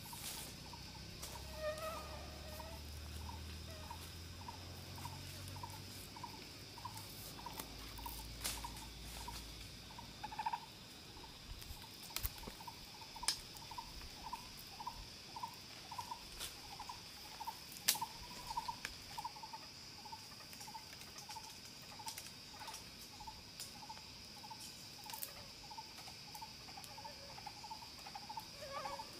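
Outdoor animal ambience: a steady high insect hum with a short call repeating about one and a half times a second, and scattered sharp clicks.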